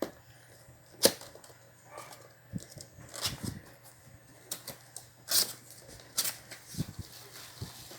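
Cardboard box and packaging being opened and handled: a string of sharp clicks and knocks with rustling between them, the loudest knock about a second in.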